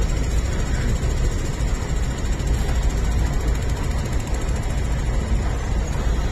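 Steady rumble of an MTR IKK-Train electric multiple unit running along the line, heard from inside the carriage.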